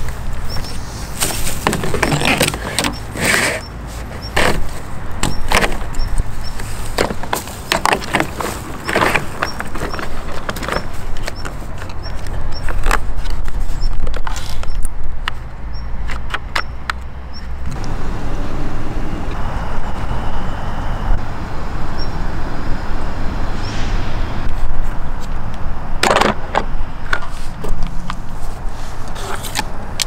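Handling noise from a Bosch GAS 18V-12 MC dust extractor: clicks, knocks and rubbing of its corrugated plastic hose and plastic body as the hose is wound around the unit, over a steady low rumble. The knocking thins out about halfway through, giving way to a steadier noise with a couple of knocks later on.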